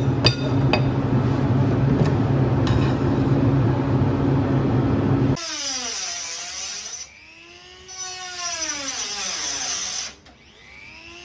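A steady low hum for about the first five seconds, then a small handheld electric rotary tool whines as it is worked against a flat panel. The whine's pitch swells and falls in arcs, easing off briefly twice.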